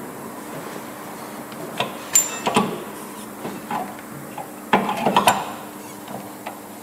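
Metal hand tools clinking and knocking against a rear disc brake caliper: a few sharp clanks about two seconds in, and a tighter run of them near the five-second mark.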